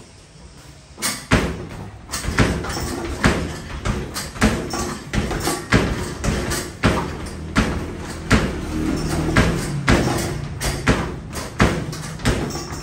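Arcade basketball shooting machine in rapid play: basketballs thudding against the backboard and rim and through the nylon net, and rolling back down the return ramp, a thud more than once a second from about a second in.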